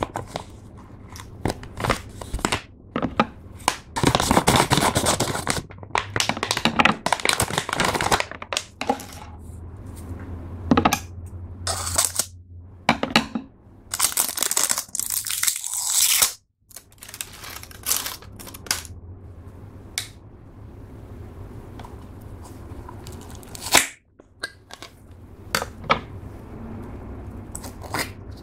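Plastic packaging bag of a rainbow slime toy crinkling and being torn open, in two long rustling stretches. In between and afterwards there are short clicks and taps as the hard clear plastic rainbow-shaped slime case is handled.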